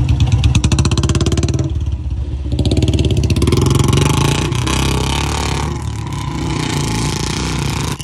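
Royal Enfield Bullet single-cylinder motorcycle engine revved hard while its rear wheel spins in loose soil. The separate exhaust thumps are distinct at first; the engine eases off about two seconds in, then runs up again and is held at high revs.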